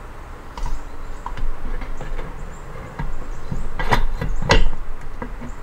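Metal clicks and clunks of NSG370 manual transmission parts being handled and fitted together, with two louder knocks about four seconds in.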